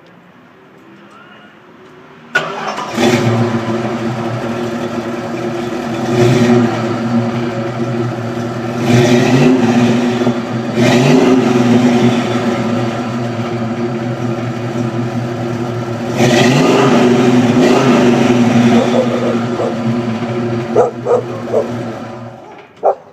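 Chrysler 360 V8 through long-tube headers, an H-pipe and Thrush dual-chamber mufflers, starting about two seconds in and idling with a rough, deep exhaust note. It is blipped several times, held up in a longer rev, then shut off near the end.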